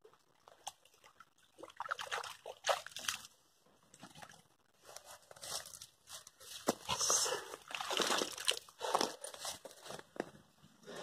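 Water sloshing and splashing at the bank as a carp is released by hand, in several irregular spells with small knocks.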